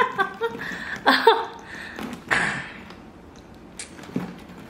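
A woman's short wordless exclamations near the start, then soft handling noise from a canvas duffel bag being lifted and turned by its handles, with a light click about four seconds in.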